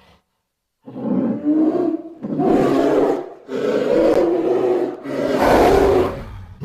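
Designed creature roars for a fictional white bear, mixed from polar bear and monster roar recordings: after a short silence, four long growling roars follow one another with brief pauses between them.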